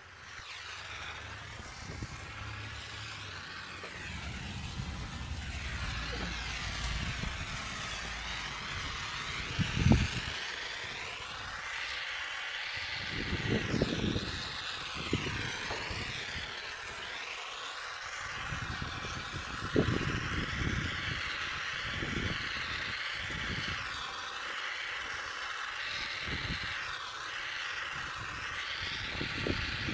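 Gas torch flame hissing steadily as it heats a radiator bracket joint to flow solder. Two sharp knocks, one about ten seconds in and another near twenty seconds.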